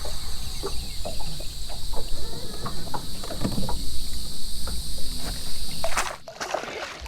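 Wind rumbling on the microphone, with scattered knocks and taps from handling in a fishing boat over a steady high hiss. The sound drops off sharply about six seconds in.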